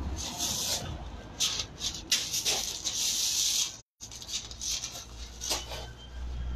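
Shoes scuffing and crunching on loose gravel in irregular bursts as feet shift and step, with a brief dropout in the audio a little before the middle.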